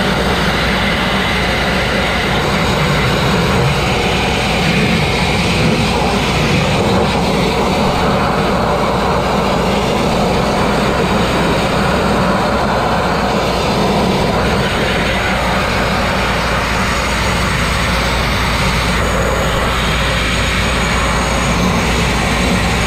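Abrasive grit blasting: compressed air and grit rushing from a blast nozzle against a crane's steelwork, stripping rust and paint, a loud, steady, unbroken rush of noise.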